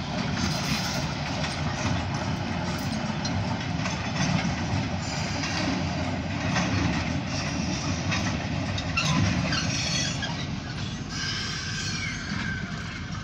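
Short Oil Creek & Titusville freight train of covered grain hoppers and its diesel locomotive rolling past, a steady rumble of steel wheels on rail with scattered clicks. A faint wheel squeal comes near the end.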